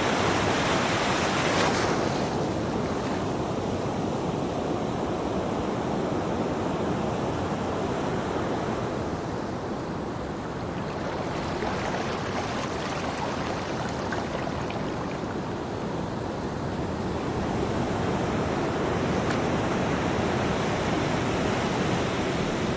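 Ocean surf washing on a beach: a wave recedes about two seconds in, the wash eases to a lull near the middle, then swells again with the next waves.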